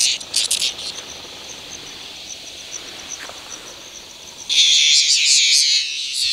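Cicadas buzzing. A few short pulsed bursts come at the start, then a fainter steady high trill, and a loud continuous cicada buzz sets in about four and a half seconds in.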